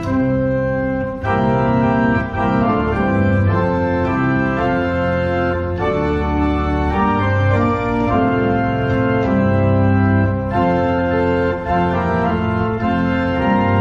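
Church organ playing a hymn tune in sustained full chords, the harmony changing about once a second.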